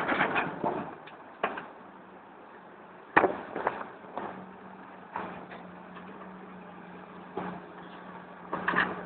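Rocks clattering into the steel bed of a Scania dump truck as a Cat 325 excavator empties its bucket, then scattered knocks of rock against the bucket as it digs into the pile, the loudest about three seconds in. Under it the excavator's diesel engine hums steadily.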